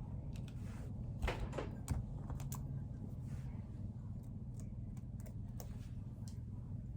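Scattered light clicks and taps from handling styling tools and the wig, several close together near the start, over a steady low hum.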